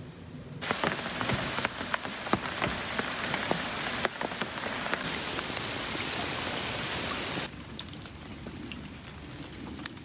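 Steady rain falling on lake water, an even patter with many separate drop hits. It softens about seven and a half seconds in.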